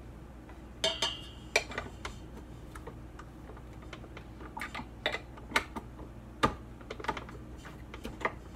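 Irregular light clicks and knocks of a flat beater being handled in a stainless steel mixing bowl and fitted onto the shaft of a stand mixer's tilted-up head, with a brief metallic ring about a second in; the mixer motor is not running.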